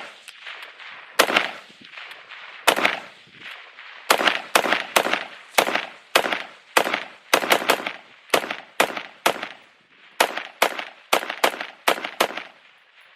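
AR-15 in 5.56 firing about twenty semi-automatic shots, a few spaced out at first and then about two a second, with one ejector of its dual-ejector bolt removed; the rifle keeps cycling shot after shot until the magazine runs dry.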